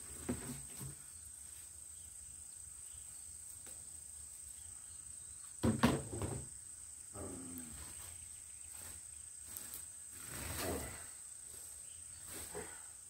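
Rustling and knocks from weeds and buried debris being pulled out by hand, the loudest clatter about six seconds in, over a steady high-pitched insect buzz.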